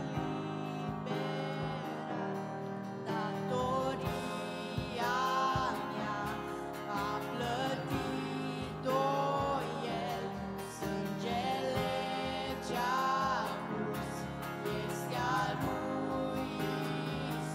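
A girl sings a Romanian Christian song into a handheld microphone: a sustained melody with vibrato, over drums and an instrumental backing.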